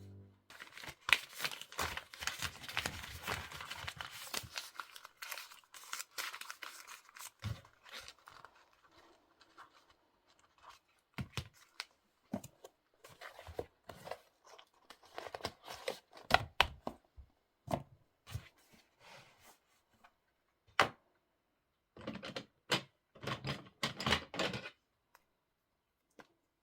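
Paper rustling and crinkling as receipts and account-book pages are handled: a dense rustle for the first several seconds, then scattered short rustles and taps.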